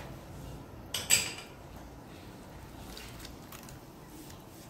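A sharp metallic clink against a stainless-steel cooking pot about a second in, ringing briefly, followed by a few faint knocks as cabbage wedges are put into the pot.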